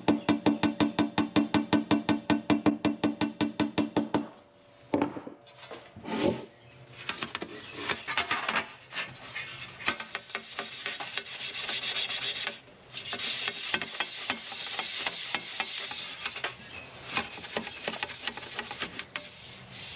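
Rhythmic background music with a plucked, wood-block-like beat for the first four seconds, then something being rubbed by hand in rough, repeated strokes, like sanding, through the rest.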